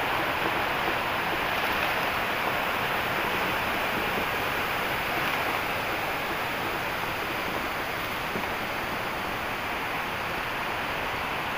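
Rocky river rushing over stones: a steady wash of water noise that grows slightly fainter.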